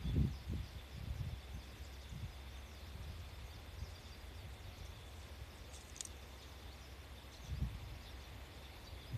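Outdoor ambience: wind buffeting the microphone in low gusts at the start and again near the end, over a faint steady hiss, with one sharp click about six seconds in.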